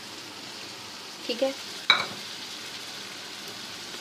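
Mutton, onions and fried bitter gourd (karela) sizzling steadily in ghee in a cooking pot, a soft even frying hiss. Just under two seconds in, a single sharp metallic clink of a utensil against the pot.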